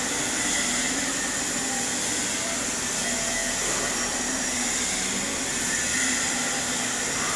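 Stick-welding arc from an E7018 electrode, a steady even hiss while the cap pass is laid on a header.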